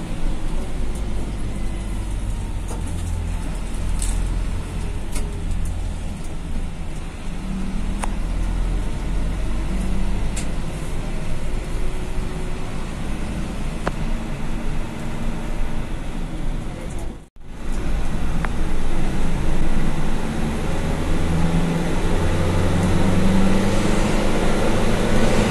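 Medium-size intercity bus on the move, heard from inside: a steady low engine hum and road noise, with a few faint clicks and rattles. A brief break comes about seventeen seconds in, and after it the engine is louder.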